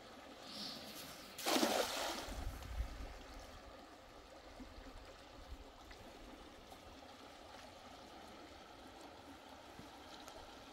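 Water flowing and trickling, with one louder splash about a second and a half in.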